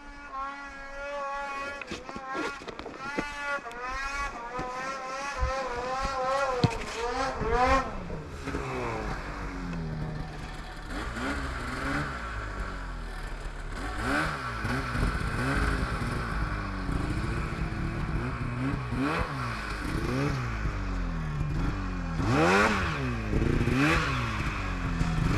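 Two-stroke mountain snowmobile engines revving up and down again and again, the pitch rising and falling as the sleds work through deep snow. The engine is fainter at first and louder and nearer from about eight seconds in.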